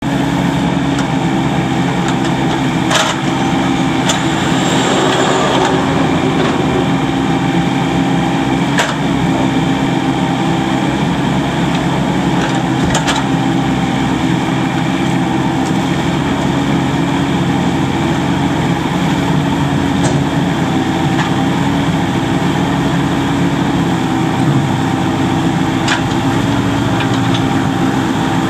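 A 2008 Komatsu PC18MR-2 mini excavator's 15 hp diesel engine running steadily while the arm and bucket are worked hydraulically. A few sharp knocks sound over it, about five in all.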